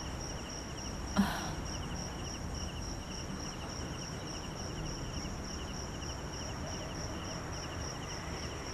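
Crickets chirping steadily in a high, finely pulsing trill, with one short soft sound about a second in.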